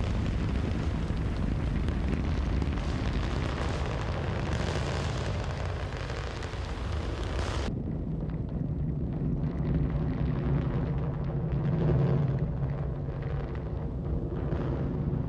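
Ariane 5 rocket's main engine and solid boosters firing during ascent: a steady deep rumbling noise that turns duller about eight seconds in, when its higher part drops away abruptly.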